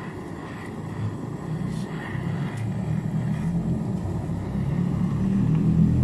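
Gas torch flame running with a steady low rumble, growing louder toward the end, as it heats the aluminium evaporator plate of a refrigerator to braze a puncture shut with aluminium rod.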